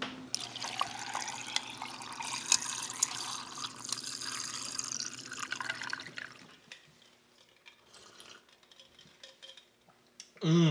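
Water running from a reverse osmosis drinking-water spigot into a glass of ice, with ice clinking against the glass, for about six seconds before the flow stops. Near the end comes a brief loud voice sound.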